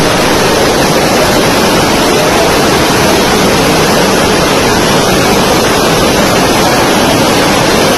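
Flash floodwater from heavy rainfall rushing over a paved walkway in a steady, loud torrent.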